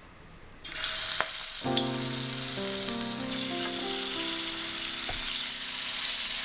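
Batter-coated bitter gourd slices dropped into hot sunflower oil and sizzling as they deep-fry; the sizzle starts suddenly just over half a second in and then runs on steadily.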